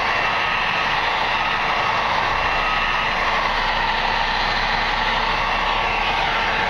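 Electric heat gun blowing steadily, warming the back of a vinyl composition tile to soften it before cutting.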